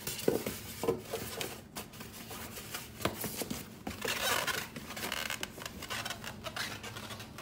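Cardboard packaging being handled: a white packing insert pulled and slid out of a small cardboard box, with scraping and rubbing and a scatter of knocks and clicks.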